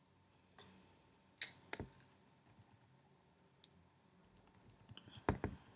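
A few short, scattered clicks and taps over a quiet background, the loudest pair about a second and a half in, and another cluster near the end.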